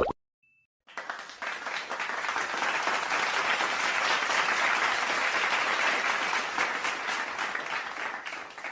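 Crowd applause: many people clapping, starting about a second in, swelling and then fading away.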